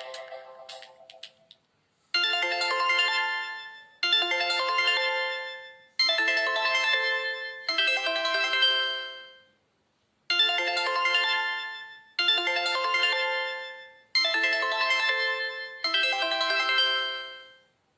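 A preloaded Nokia Lumia 520 ringtone: a phrase of four ringing chords about two seconds apart, each struck sharply and fading away, played twice with a short pause between. The previous tone dies away in the first second and a half.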